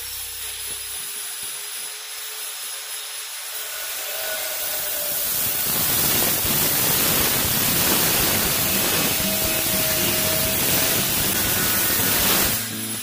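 Handheld angle grinder with a cut-off disc cutting through a metal drywall track. A thin high whine at first gives way to a louder, steady grinding hiss from about four seconds in, which stops abruptly near the end as the cut finishes.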